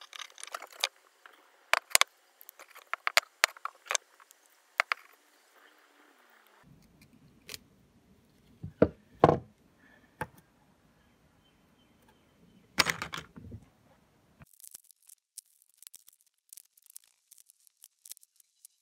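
Metal multi-tool picking and cutting at old stacked leather washers on a hammer handle: sharp clicks and scrapes of metal on leather and wood, with a few louder knocks. After a break the sound turns to light, rapid scratching and tearing as the leather is worked off.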